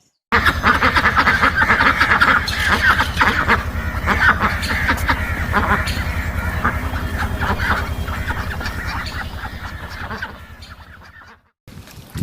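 A large flock of birds calling over one another in a dense, continuous chorus. It starts abruptly, tapers off and cuts out near the end.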